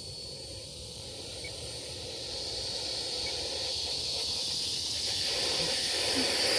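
Electric ducted fan of a 90mm RC F-22 jet running at low power as it taxis on grass: a steady high-pitched whine over an airy hiss, getting gradually louder as the jet approaches.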